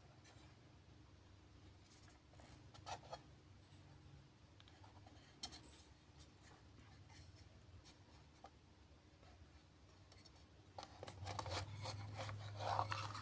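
Faint handling sounds of fingers on a metal watch tin and a watch: scattered light clicks, taps and rubs, getting busier near the end, over a low steady hum.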